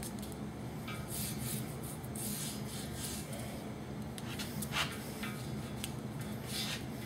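A marking stick scraping along thick steel plate in repeated strokes as cutting lines are traced out, over a steady low hum.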